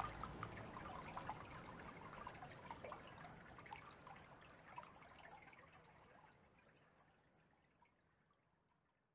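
Faint water trickling with many small drips, fading out slowly until it is almost gone near the end.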